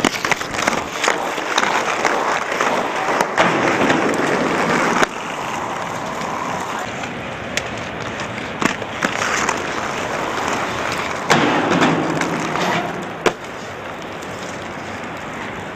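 Inline skate wheels rolling over asphalt, a steady rolling noise with a few sharp clicks and knocks. It is louder for the first five seconds and again about eleven seconds in.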